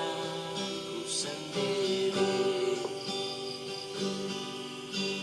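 Music with acoustic guitar: sustained chords that change every second or so.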